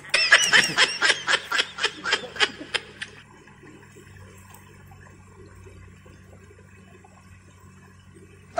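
A rapid run of giggling laughter, about five short bursts a second, fading out after about three seconds; then only faint background.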